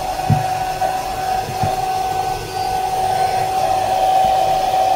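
Hair dryer running steadily: an airy rush with a strong, steady whine. It is heating the phone's glued back cover to soften the double-sided tape. Two low knocks sound in the first two seconds.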